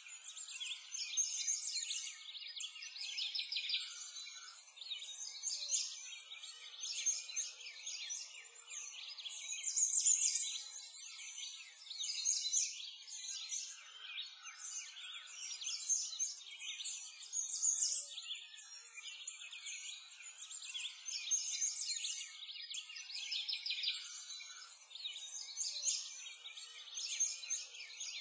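A dense chorus of many songbirds, high-pitched chirps and trills, swelling and easing every couple of seconds.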